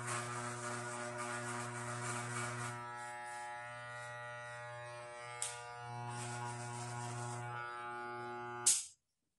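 Corded electric hair clipper buzzing steadily, with added hiss in the first few seconds and again later as the blades cut through hair. Near the end it is switched off with a click and the buzz stops suddenly.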